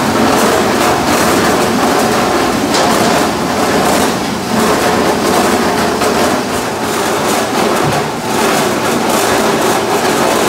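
Apple mill machinery running: a motor-driven roller sorting table and an inclined conveyor carrying apples, with a steady clatter of apples knocking on the rollers, the metal chute and each other.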